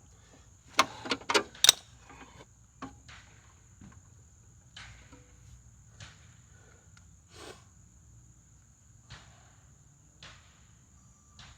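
Sharp metallic knocks and clicks as the sheet-metal side chute is handled and fitted against the push mower's deck, a quick loud cluster of three or four about a second in, then scattered lighter knocks. Crickets chirp steadily in the background.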